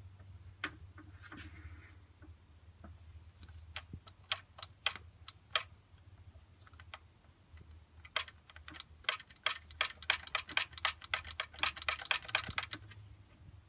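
A series of sharp, irregular clicks and taps, sparse at first and then coming quickly in a run from about eight seconds in, over a faint low hum.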